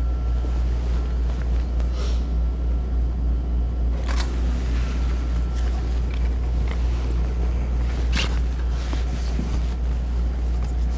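A few shutter clicks from a Canon EOS 5D Mark III taking tethered frames, spaced a couple of seconds apart, over a steady low rumble.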